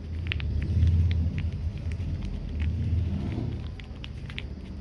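A low rumble that swells twice, with light clicks and crinkles of packaging being handled over it.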